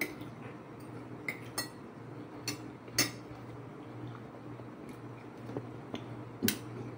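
Spoon and fork clinking against plates while eating: a handful of sharp, scattered clinks, the loudest about three seconds in, over a steady low hum.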